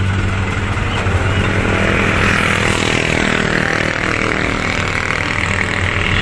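Small motor-driven water sprayer running steadily: a motor hum under a loud spray hiss, washing the mud off a toy dump truck. It starts suddenly and keeps on without a break.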